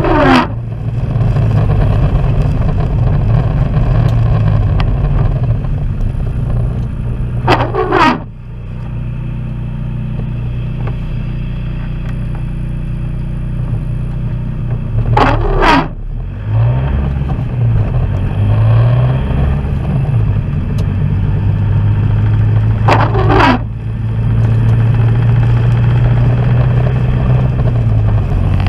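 Vehicle engine and road noise heard from inside the cab while driving, with the intermittent windscreen wipers sweeping the wet glass four times, about every eight seconds. About midway the engine note slides down and up again, as when slowing and pulling away.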